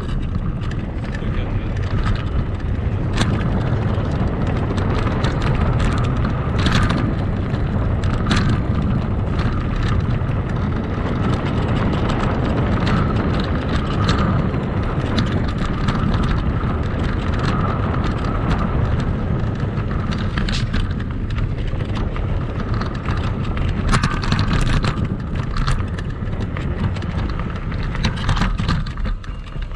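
Kugoo Max Speed electric scooter riding over rough sandy ground, heard from the front fender: a steady rumble of wind and tyres with a faint steady whine, broken by frequent clicks and knocks as parts rattle over the bumps.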